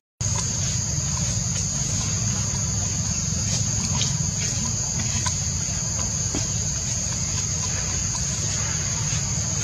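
Insects droning in a steady high-pitched chorus over a low steady rumble, the sound cutting out for a moment at the very start.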